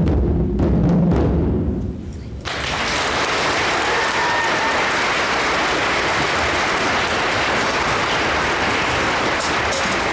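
Tall hand drums played by a group, their last low strokes dying away over about two seconds, then audience applause starting abruptly and going on steadily.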